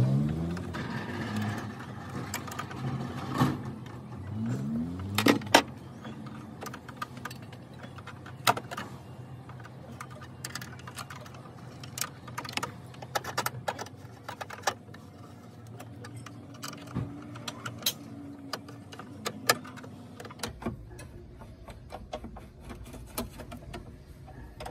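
Hand-tool and part handling at a van's engine bay: scattered metal clinks and knocks of tools and fasteners and a plastic cover panel being fitted back into place. Beneath them runs a steady low hum that stops about twenty seconds in.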